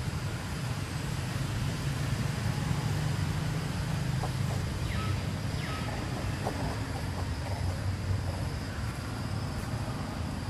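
Steady low rumble of outdoor background noise, with a few faint short high calls about halfway through.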